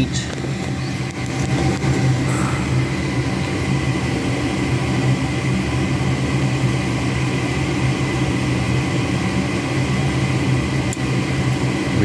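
Goodman gas furnace's draft inducer motor running with a steady hum after a call for heat. This is the pre-purge stage of the ignition sequence, before the hot surface igniter is energized.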